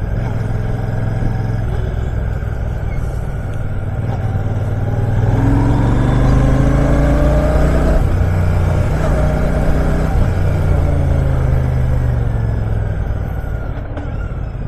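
Royal Enfield Shotgun 650's 648 cc parallel-twin engine running on the move in city traffic. Its pitch rises for a few seconds as it accelerates, about five seconds in, then drops back.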